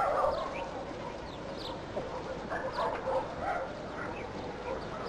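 Short animal calls, about two a second and overlapping, from the herded flock, with small birds chirping high above them.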